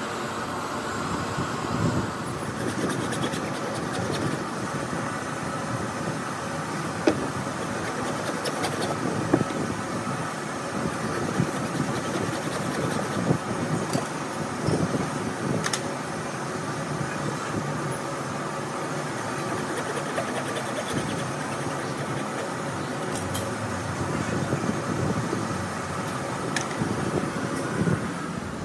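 Lead battery plates from an old lead-acid battery knocking and scraping now and then as they are pried out and separated, over a steady background hum.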